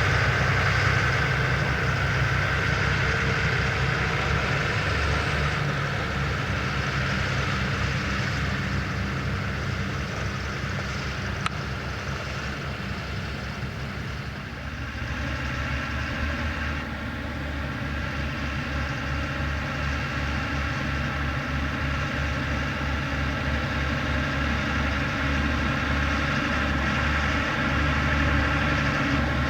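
Fendt tractor's diesel engine running steadily while working with a potato harvester. About halfway through it dips a little and settles into a steadier hum, with a single click shortly before.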